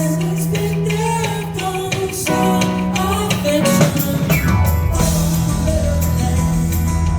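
Band playing live: guitars, drum kit and sung vocals. The low end grows fuller about five seconds in.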